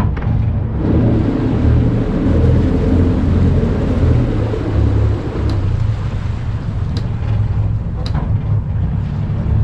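Sailboat's inboard engine running with a low rumble, building about a second in under a short burst of ahead power and easing after about five seconds. The prop wash is driven against the rudder held hard to port to steer the stern while backing in. A few sharp clicks come in the second half.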